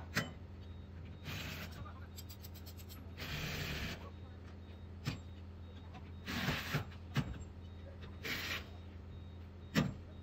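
Axles being unbolted from under a manufactured home: sharp metal hammer strikes, the loudest near the end, and several short bursts from a cordless impact wrench, over a steady low engine hum.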